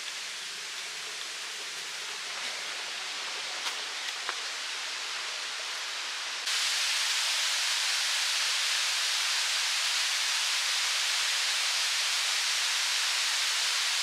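Steady rush of a waterfall, with a few faint taps in the first half. About six and a half seconds in it suddenly becomes louder and brighter and then holds steady.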